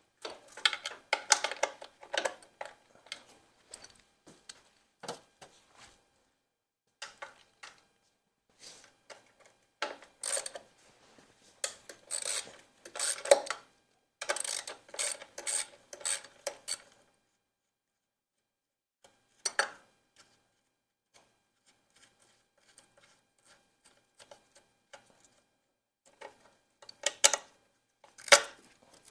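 Metal tools and parts clinking and clattering in short bursts with quiet gaps between, as parts are taken off a Ford 351 Windsor V8 being dismantled.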